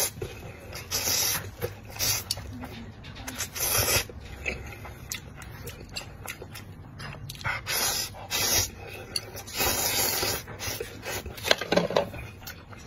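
Noodles being slurped up in repeated short sucking bursts, with wet chewing clicks in between.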